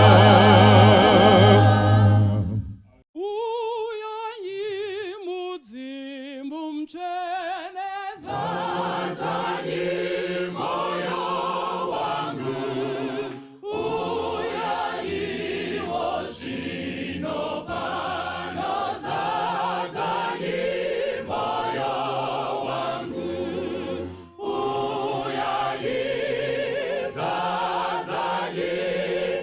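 A church congregation singing a hymn in chorus. About three seconds in, a single voice carries a line alone, and the whole group comes back in at about eight seconds.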